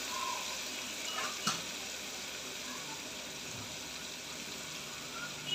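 Onion-tomato purée and ginger-garlic paste sizzling steadily in oil in a pressure cooker, the masala being fried down (bhuna). A single short click about a second and a half in.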